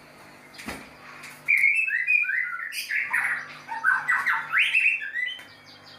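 White-rumped shama in an aviary giving a loud, rapid run of varied chattering and whistled notes for about four seconds, starting about a second and a half in. A single sharp click comes just before it.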